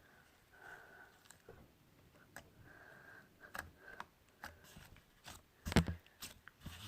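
Quiet clicks and sticky crackles of putty being handled and pulled apart, with a louder cluster of clicks near the end.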